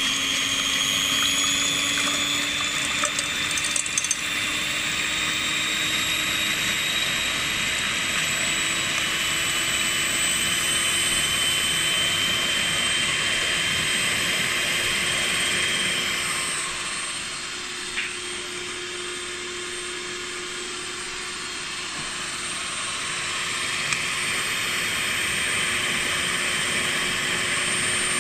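Electric hand mixer running steadily, its beaters whipping egg whites to a froth in a stainless steel bowl; the motor's hum creeps slowly up in pitch. A few clicks come about three to four seconds in, and the sound drops a little quieter for a few seconds past the middle.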